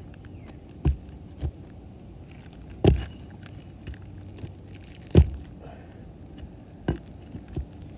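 About six sharp knocks, the loudest about three and five seconds in: a roofer's shingle ripper (snake) being struck to work out a blown-through nail from under an asphalt shingle.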